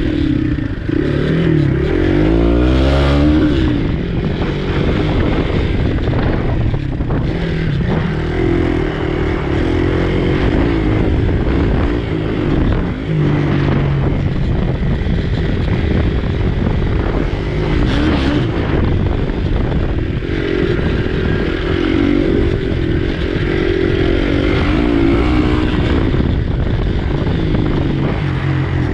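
Motorcycle engine heard from a camera mounted on the bike, revving up and down as the rider accelerates, shifts and backs off around the dirt track, with a few knocks from the bike over rough ground.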